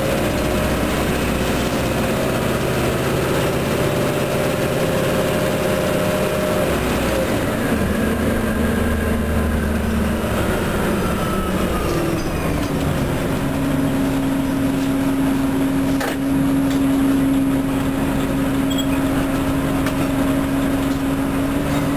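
Orion transit bus running, with a steady whine over the engine and drivetrain drone. The tones shift as it changes speed: the higher tones drop away about a third of the way in, and a new steady whine settles in just past halfway.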